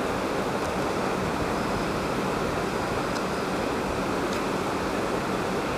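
A steady rushing noise, even and unbroken, with a few faint clicks.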